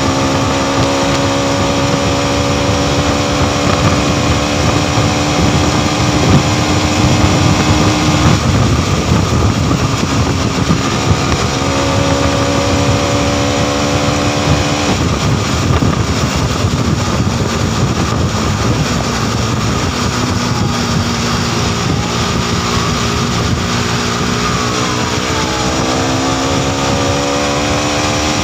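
Modenas NS200's single-cylinder engine running at highway speed under heavy wind rush on the microphone. The engine note holds steady, drops away twice as the throttle is eased (about 8 and 15 seconds in), and climbs again near the end as the bike accelerates.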